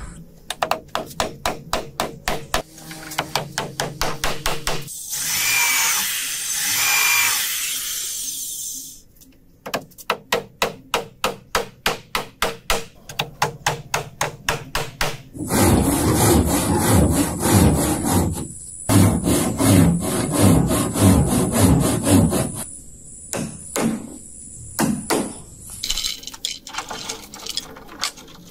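Woodworking on boat timber: runs of sharp, even strokes on wood at about three a second, broken by a few seconds of harsher scraping noise. In the middle comes a longer, louder stretch of a power tool cutting wood, with a thin steady high whine.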